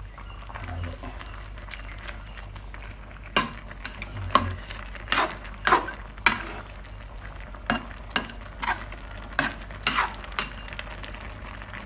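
A metal utensil stirring coconut-milk stew in a wide metal wok, knocking and scraping against the pan about a dozen times in quick, uneven strokes from a few seconds in until near the end.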